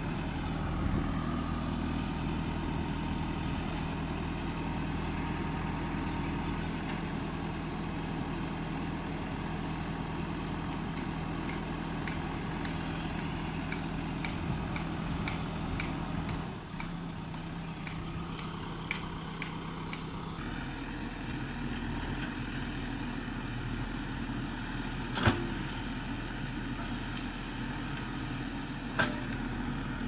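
JCB backhoe loader's diesel engine running steadily while the backhoe arm digs. The engine note changes about halfway through, and two sharp knocks stand out near the end.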